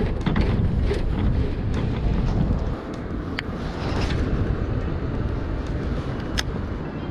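Wind buffeting the microphone, a steady low rumble that eases a little about three seconds in, with a few light clicks of gear being handled.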